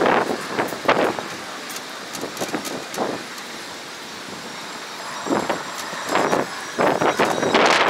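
Wind gusting against a phone microphone high on an open tower: a rushing noise that comes in surges, easing off in the middle and picking up again over the last few seconds.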